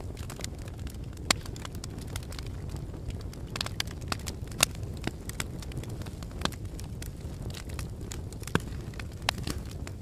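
Fire burning in a fireplace: a steady low rumble of flames with frequent sharp crackles and pops, and a few louder snaps scattered through.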